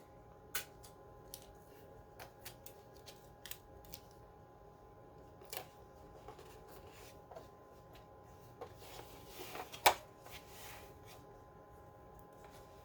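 Faint handling sounds of adhesive tape being pulled and pressed over a smoke alarm's horn: scattered small clicks and rustles, with a longer rasp and one sharper click about nine to ten seconds in.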